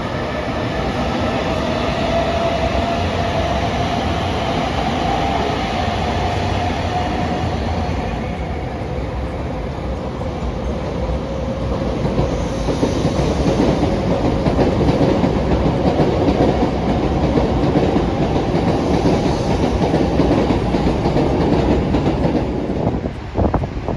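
A train passing close by on the rails, wheels clattering over the track with a steady hum. The rumble grows louder about halfway through and drops away suddenly near the end.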